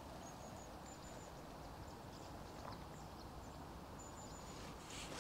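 Quiet outdoor background noise, a steady hiss like wind, with a few short, thin, high peeps.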